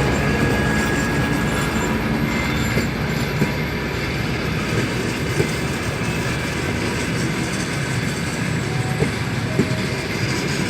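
Departing passenger train's carriages rolling past with a steady rumble, their wheels giving occasional sharp knocks over rail joints.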